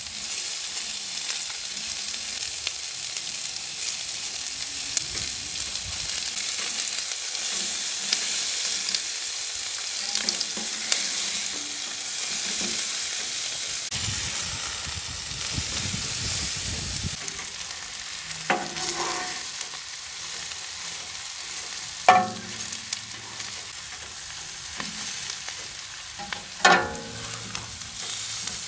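Bacon, potato wedges and onion sizzling on a steel flat-top griddle as a metal spatula scrapes and turns them. Three sharp metallic clanks that ring briefly come in the second half, the last two the loudest.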